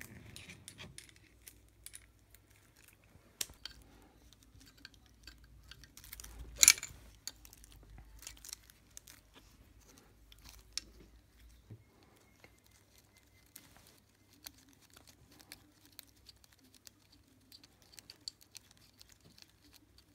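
Scattered metallic clicks and knocks of hands and tools working on a small air-cooled single-cylinder ATV engine: the cylinder's retaining bolt being undone and the cylinder being rocked loose on its studs. One sharp knock about seven seconds in stands out.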